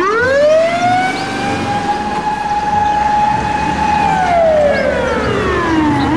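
Japanese fire rescue truck's siren wailing in one slow cycle: it rises, holds a steady pitch for a few seconds, falls away, and starts to rise again near the end, over a low engine rumble.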